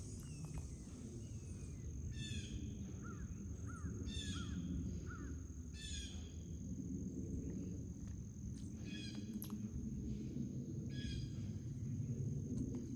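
Outdoor ambience with a bird giving short calls about every two seconds, five in all, and a few smaller chirps between them. A steady high-pitched drone and a low rumble run underneath.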